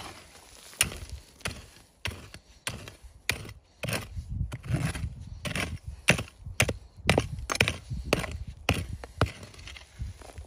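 Short-handled mattock striking hard, stony earth in quick repeated blows, about two a second, breaking up the soil and stones while digging.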